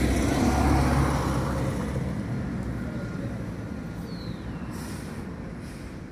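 Diesel bus engine rumbling nearby, loudest at the start and fading over the next few seconds. Two short hisses of air come about five seconds in.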